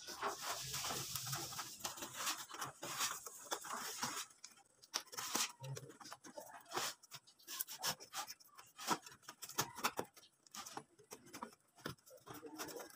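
Irregular rustling and small clicks as hands handle a flexible aluminium foil duct and its wiring, with a crinkling haze in the first few seconds.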